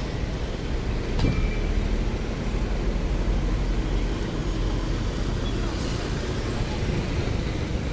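Steady low rumble of idling vehicle engines. There is one sharp click about a second in, and a motor scooter rides past near the end.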